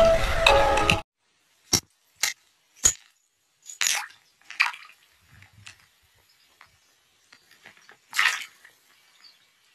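Background music for about the first second, cutting off suddenly. Then sparse water sounds from a hand working among stones in shallow water: three short sharp clicks, then a few brief splashes and drips.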